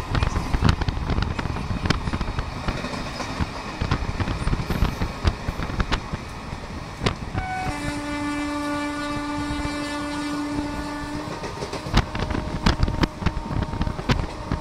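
Trains running alongside each other: a steady rumble with the clickety-clack of wheels over rail joints as express coaches pass close by. About seven seconds in, a train horn gives a short note and then one long blast of about three and a half seconds.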